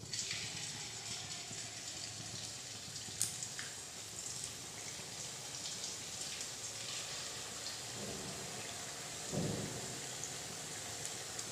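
Potato sev dough pressed from a sev maker into hot oil, the strands sizzling steadily as they fry. A sharp click comes about three seconds in and a short thud a little after nine seconds.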